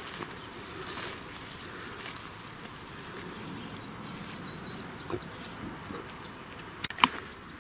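Steady, high-pitched chirring of insects, which stops abruptly about seven seconds in with a sharp knock.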